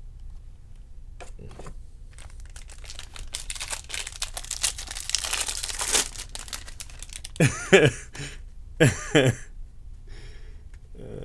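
Wrapper of a baseball card pack being torn open and pulled off the cards, crinkling louder toward the middle. About two-thirds of the way through come two pairs of short, sharp squeaks.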